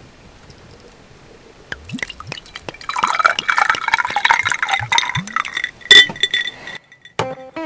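Cloudy nigori sake glugging out of a glass bottle and splashing into a glass, then a ringing clink of glass about six seconds in. Guitar music starts near the end.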